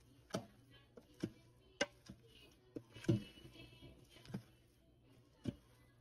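Spoon knocking and scraping against the side of a stainless steel pot while mixing cooked vegetable rice: about eight irregular light knocks, the strongest about three seconds in.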